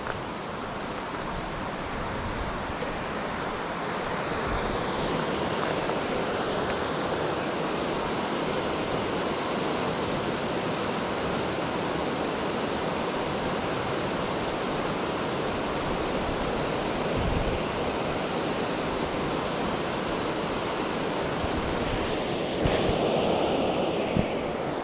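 Steady rushing water of a mountain stream, growing a little louder about four seconds in. A few knocks from the handheld camera being jostled near the end.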